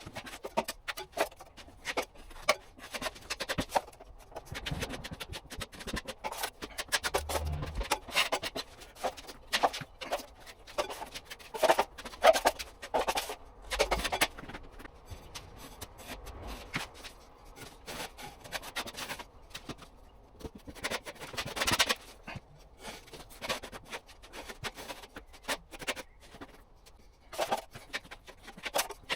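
Plastering knife spreading a base coat of plaster compound over a taped plasterboard joint: repeated, irregular scraping strokes.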